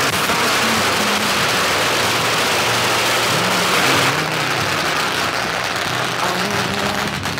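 A long string of firecrackers going off in a continuous rapid crackle of pops, thinning a little about four seconds in.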